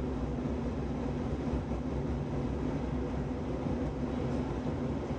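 Steady cabin noise inside an Airbus A319 climbing out after takeoff: a low rumble of engines and airflow with a steady hum running through it.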